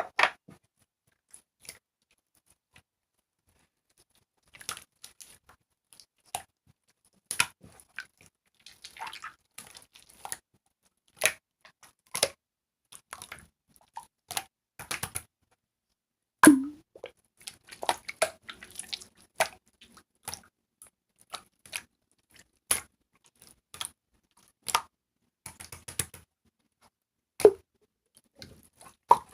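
Translucent marbled slime being squeezed and pressed by hand, giving irregular wet clicks and small pops with short quiet gaps between.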